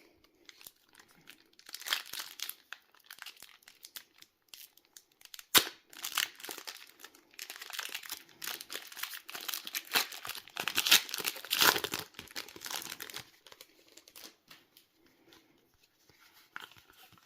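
Foil wrapper of a Pokémon card booster pack crinkling and tearing as it is opened and the cards are handled, with one sharp click about five and a half seconds in.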